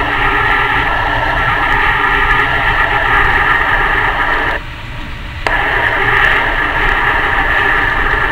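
Steady rushing noise of a Thalys high-speed train running at speed, heard from inside the carriage: wheel and air noise with a low rumble underneath. About halfway through it goes quieter for under a second, then comes back with a sharp click.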